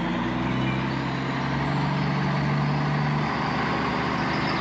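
Tractor engine running steadily with a low, even hum; the hum shifts about three seconds in.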